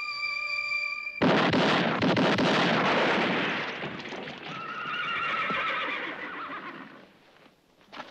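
A held musical tone cut off about a second in by a sudden volley of gunshots with a long echoing tail. As the echo dies away, horses whinny with one long wavering neigh, and a short click comes near the end.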